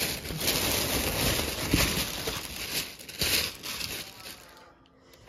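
A plastic shopping bag and the clothes' plastic packaging rustling and crinkling as items are handled, tailing off to quiet near the end.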